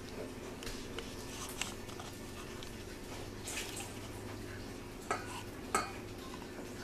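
Light clinks and knocks of a ceramic bowl against a stainless steel mixing bowl as melted butter is poured in, with two sharper knocks about five and six seconds in.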